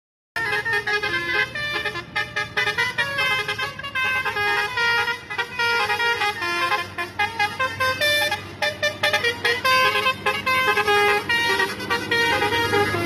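Telolet horns on tour buses playing a rapid run of short melodic toots, several notes a second, starting about a third of a second in. Under the horns is the steady low hum of a bus engine.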